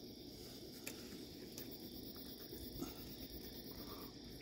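Crickets and other night insects chirring steadily, with a few faint clicks.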